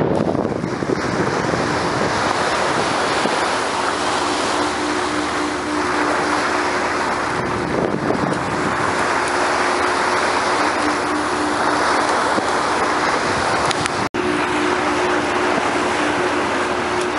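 Water rushing along the bow of a moving fishing vessel, with wind on the microphone and a steady low engine drone underneath. The sound cuts out for an instant about 14 seconds in.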